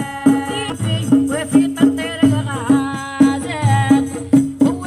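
Algerian meddahat religious praise song: women's voices singing over a steady beat of hand drums, about two to three strokes a second.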